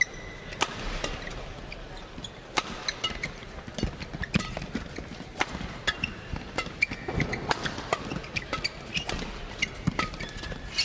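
Badminton rally: a rapid series of sharp racket hits on the shuttlecock, with short shoe squeaks on the court between them, over a low arena crowd murmur.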